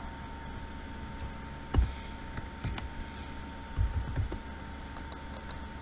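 A few soft knocks and clicks of a computer mouse and keyboard being handled on a desk, about two seconds in, again near three seconds, and a short cluster about four seconds in, over a steady low hum and a faint steady tone.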